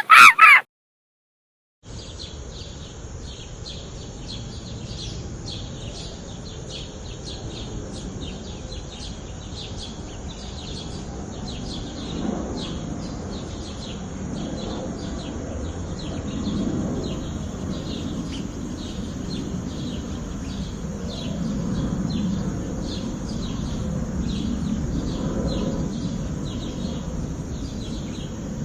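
Steady outdoor background hiss with many short, high chirps of small birds repeating densely throughout. It is broken by about a second of silence just under a second in.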